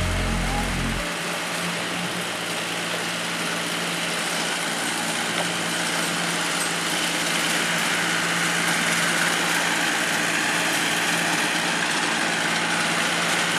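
Engine of a turf aerator machine running steadily, a constant mechanical drone. Its deep low rumble drops away abruptly about a second in.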